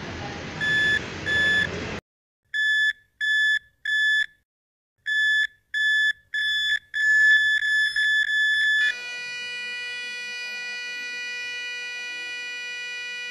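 Patient heart monitor beeping, the beeps quickening into a near-continuous run about seven seconds in, then giving way to a single unbroken flatline tone at about nine seconds: the patient's heart has stopped despite CPR.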